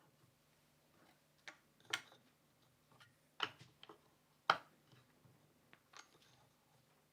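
Irregular short clicks and knocks of a wooden bench clamp's parts being handled and fitted, about half a dozen, the sharpest about two, three and a half and four and a half seconds in, over a faint steady hum.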